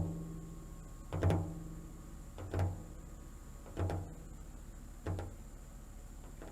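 A drum beaten slowly and steadily, about one beat every second and a quarter, each beat a low thud with a short ring, the beats growing softer.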